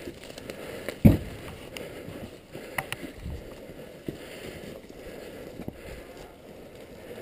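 Rustling and small knocks of movement picked up by a body-worn GoPro, with one loud thump about a second in.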